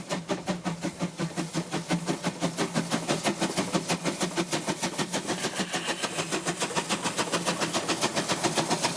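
Narrow-gauge steam locomotive working along, its exhaust beating in a fast, even rhythm of about six chuffs a second over a steady low hum.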